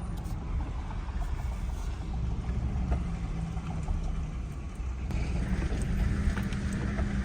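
Vehicle engine running steadily with a low, even rumble.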